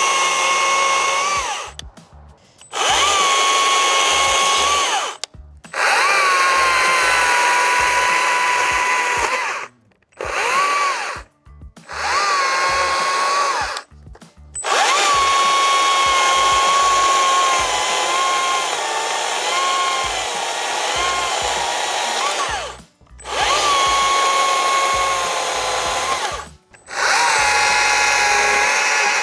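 Battery-powered STIHL MSA 60 C-B chainsaw limbing a log: its electric motor whines up at each trigger pull, sags in pitch as the chain cuts, and stops between cuts. It runs about eight times, the longest run about eight seconds.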